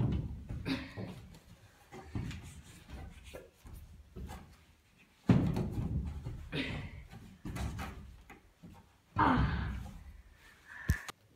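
Thumps and knocks of hands and feet against wooden wall panels and battens as someone climbs, with scuffing between them. The loudest thump comes about five seconds in, and there is a sharp click near the end.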